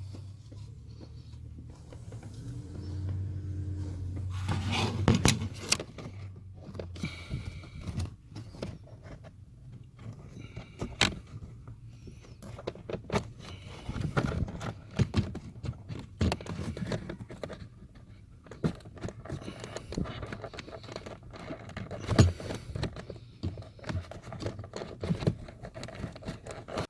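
Rustling, scraping and irregular clicking of a pleated cabin air filter being squeezed and pushed into its plastic housing, with a few sharp knocks of plastic.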